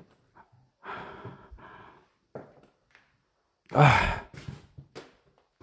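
A man breathing heavily and sighing, with a loud sharp gasp about four seconds in.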